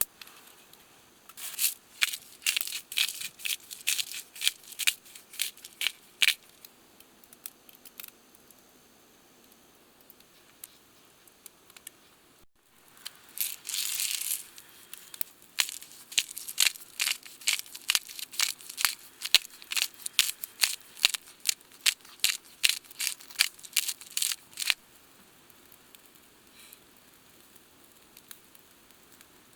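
Knife chopping on a cutting board: two runs of sharp, quick taps about three a second, with a short rustling, tearing noise between them.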